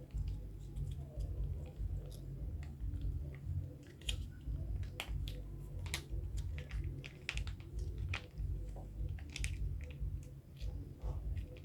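Cats eating, with irregular sharp crunches as they chew their food, over a steady low rumble.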